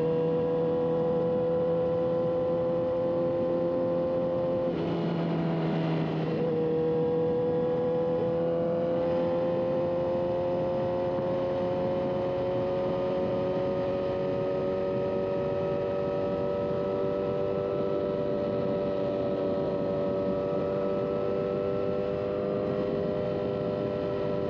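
Engine of a vehicle on the move, running with a steady hum. The pitch dips briefly about five seconds in, then climbs slowly as it speeds up.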